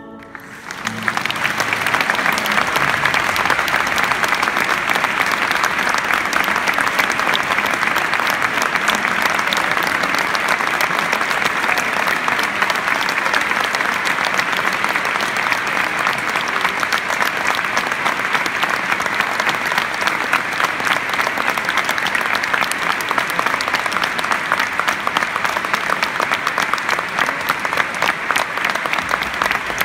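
Audience applauding: dense, steady clapping that swells up about a second in and keeps on without a break.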